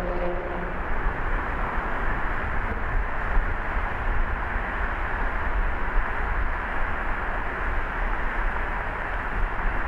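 Car driving along a city street: steady road and tyre noise over a deep rumble. A humming tone fades out in the first second.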